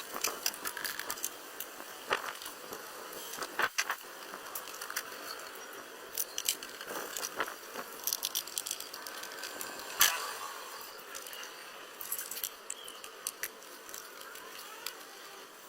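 Irregular light clicks, taps and rattles of small hard objects being handled, over a faint hiss, with one sharper tap about ten seconds in.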